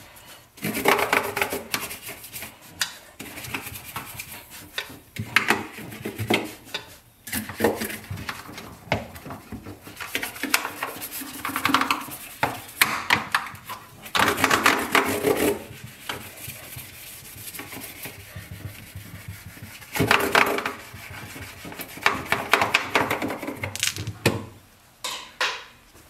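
A stiff brush scrubbing the plastic inside of a refrigerator with baking soda to lift dried-on food, in bouts of quick back-and-forth strokes with short pauses between.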